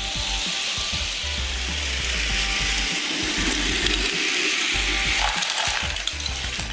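About ten Hot Wheels die-cast cars rolling down orange plastic track together, a continuous clattering rattle of many small wheels on the plastic.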